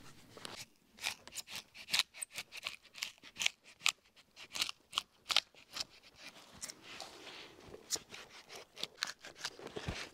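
Birch bark on a felled log crackling and tearing as a hand tool pries it away from the wood, in quick irregular snaps.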